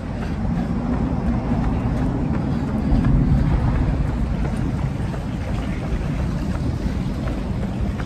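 Wind buffeting a handheld microphone as the runner moves, with a low rumble that swells about three seconds in.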